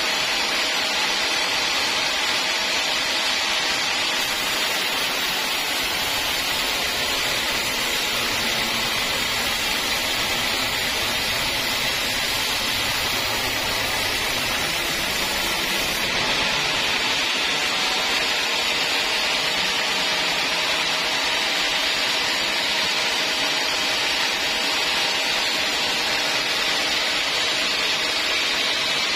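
Sawmill band saw running steadily, its blade sawing through a thick teak slab.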